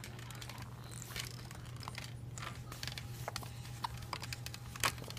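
Light clicks and rustling as a toddler handles a baby bouncer's fabric-covered toy bar, working it loose from its plastic socket, over a steady low hum.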